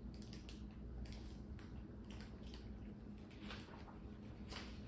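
Faint sounds of drinking from a plastic water bottle: soft swallows and small clicks and crinkles of the plastic, then the cap being twisted back on near the end.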